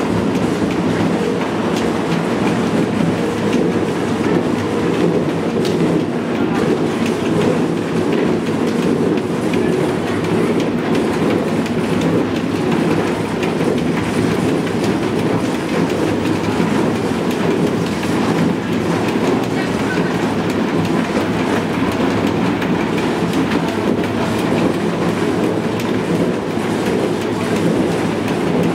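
Potato grading line running: the shaken wire-mesh screen grader and belt conveyors make a loud, steady rattling clatter as potatoes tumble over the mesh.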